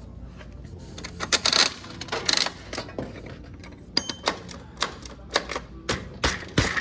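A coin-operated toy vending machine clicking and clinking as coins are fed into it and its mechanism is worked: a string of short, sharp, irregular metallic clicks, closer together in the second half.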